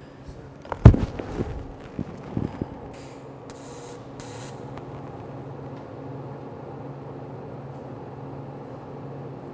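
A sharp knock about a second in and a few lighter knocks, then three short bursts of high hiss as the TIG arc starts. After that, a DC TIG arc welding 11-gauge mild steel at about 120 amps runs with a steady, even hum.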